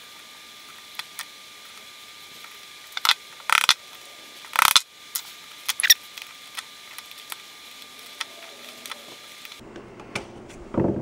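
Small metal clicks and scrapes of a screwdriver prying at the little tabs of an old car radio control's housing, with a few louder scraping strokes between about three and five seconds in and another near the end.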